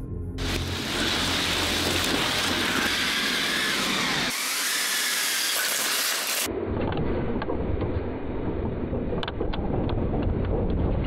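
Rushing, rumbling noise of a Lego train crash. It changes abruptly twice, and in the last few seconds it is duller, with a few sharp clicks.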